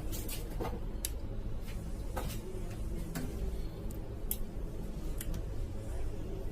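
Irregular light clicks and ticks, about nine over a few seconds, over a steady low hum.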